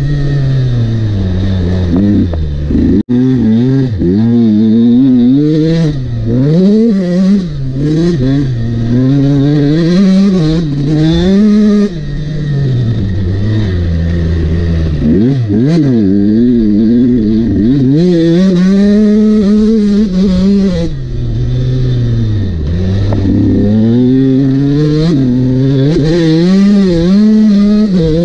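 Husqvarna motocross bike's engine, loud and close, revving up and falling back over and over as the rider accelerates, shifts and backs off around the track. It dips for an instant about three seconds in.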